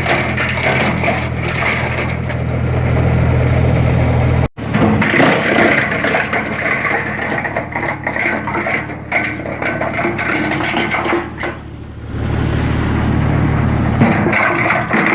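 Geo Tech TCP 100 PTO-driven wood chipper chewing through branches, with cracking and crunching wood over the steady running of the Massey Ferguson 140 tractor that drives it. The sound cuts out abruptly for an instant about four and a half seconds in.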